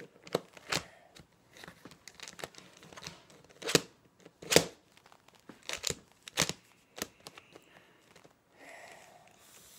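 Plastic Rubik's cube being twisted by hand: about a dozen sharp, unevenly spaced clicks and scrapes as its layers are turned.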